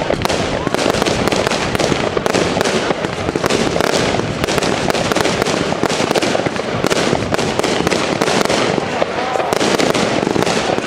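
Consumer fireworks going off in a dense, unbroken run of shots and bursts, several a second.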